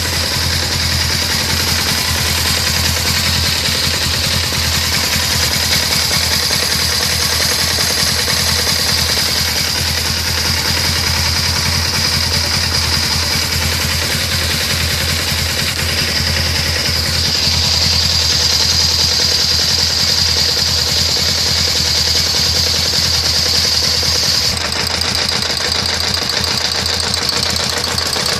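Suzuki GS500 air-cooled parallel-twin engine idling steadily when warm, with a tick from the top of the cylinder head ('tiqui, tiqui, tiqui') that keeps pace with engine speed. The noise appears only once the engine has warmed up.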